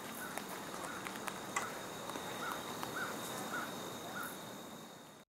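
Outdoor ambience of insects and a bird: a steady high insect trill, with a short chirp repeated every half second or so. It fades and cuts off just before the end.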